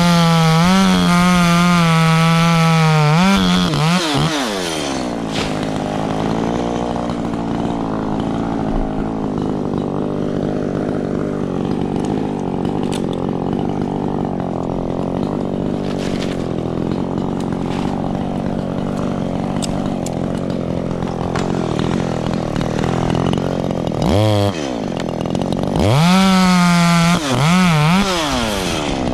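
Echo CS-3510 two-stroke chainsaw running at high revs with a wavering pitch for the first few seconds, then dropping to a lower, steady speed for about twenty seconds. It revs up again in several short bursts near the end.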